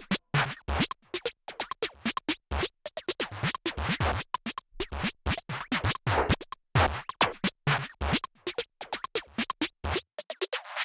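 Background electronic music made of rapid, choppy, stuttering cut-up sounds, with the bass dropping out near the end.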